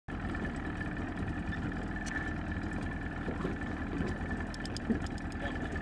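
Boat's outboard motor running steadily at slow trolling speed, a low hum with a thin steady whine over it, cutting in abruptly at the start.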